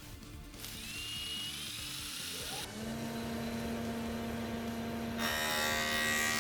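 Sound-effect samples in sequence: a high hiss with a faint rising whistle, then a tone that glides up and holds steady like a whirring machine, joined about five seconds in by a shrill, dense buzz.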